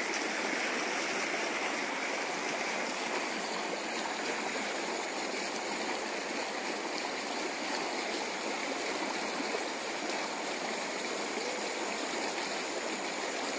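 Steady rushing of a fast-flowing river, an even wash of water noise with no separate splashes.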